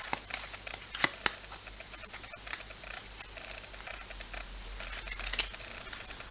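Match Attax trading cards being handled and flicked through: a run of light clicks and rustles, with two sharper snaps about a second in.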